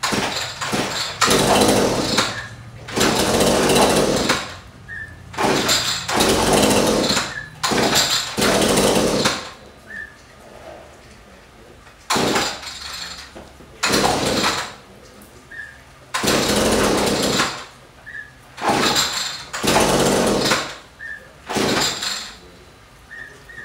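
Echo SRM-2620 string trimmer's two-stroke engine revved again and again in bursts of one to two seconds, dropping back to a low idle between them.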